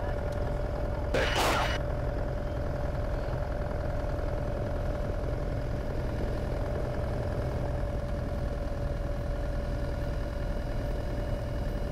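Cessna 182's piston engine and propeller heard from inside the cabin, a steady drone with a constant hum, while the plane rolls on the runway. A brief hiss cuts in about a second in.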